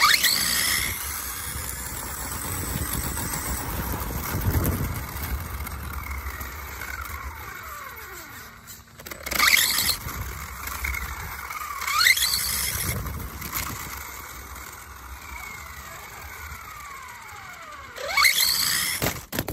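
Electric motor and drivetrain of a Tamiya TT02 RC touring car, heard from on board: a high-pitched whine that shoots up in pitch each time it accelerates hard and slides back down as it slows, about four times. Wind and tyre rumble run underneath.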